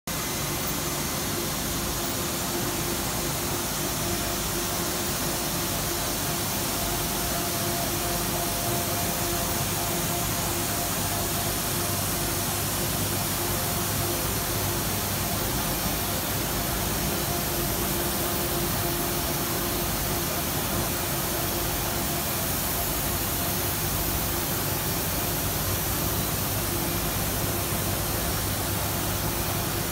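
Narrow-web label printing press running at a steady speed: an even machine hiss with a faint steady hum.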